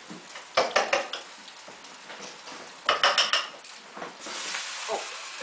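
Metal utensil clinking against a frying pan in two short bursts of clatter as the sausages are handled, then the sausages sizzling steadily from about four seconds in.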